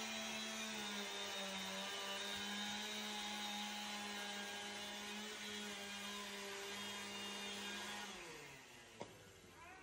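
Handheld power saw running steadily as it cuts into an OSB wall panel, its motor winding down about eight seconds in, followed by a faint knock.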